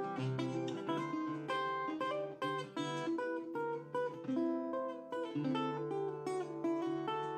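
Guitar music: plucked notes and chords played over a held low bass note, several note changes a second.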